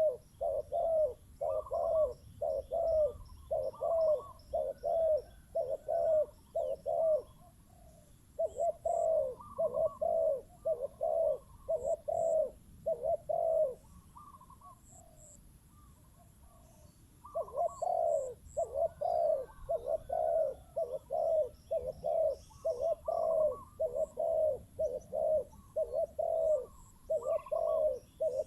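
Spotted doves cooing, a fast string of short, low coos at about two a second, breaking off twice briefly before starting again. Faint high chirps sound now and then above them.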